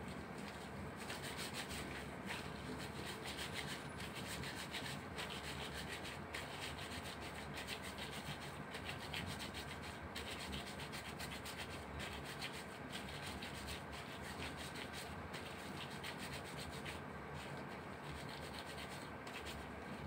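Gloved hands rolling raw minced pork and beef into meatballs between the palms: a steady soft rubbing and squishing of glove against meat.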